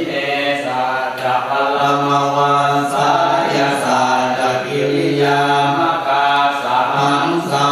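Buddhist chanting in Pali, recited mostly on one steady low pitch with brief breaks every couple of seconds.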